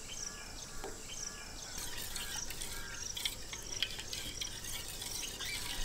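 Small birds chirping and insects calling, with faint liquid sounds of cooking oil poured into a bowl of thin flour batter and whisked in.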